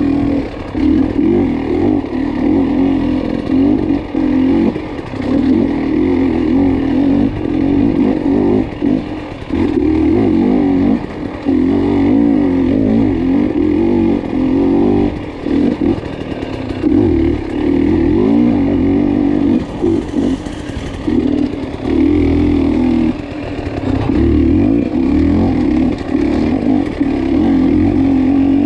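Dirt bike engine revving hard in repeated surges as the throttle is opened and shut, with short drops in between every second or two, as the bike is ridden over off-road race terrain.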